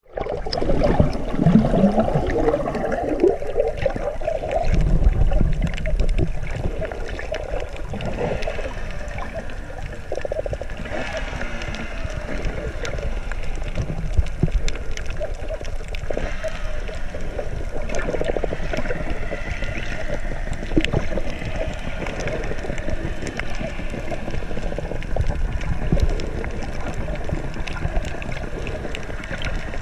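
Underwater sound picked up by a camera below the surface: a steady muffled wash of water with many small crackles and clicks, and low rumbling swells.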